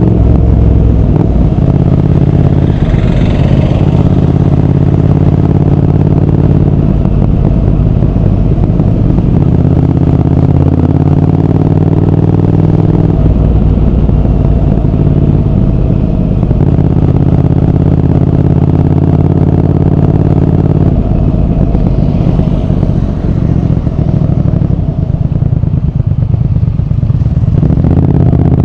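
Triumph Speed Twin 1200's parallel-twin engine and exhaust while riding, held at a steady note for a few seconds at a time with rougher breaks in between, and rising in pitch near the end.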